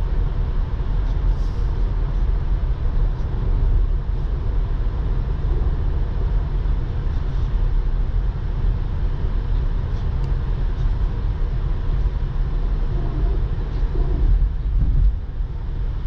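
Tesla Model 3 driving at motorway speed: steady tyre and road noise with a low rumble and no engine sound, as the car is electric. The noise drops a little about fifteen seconds in.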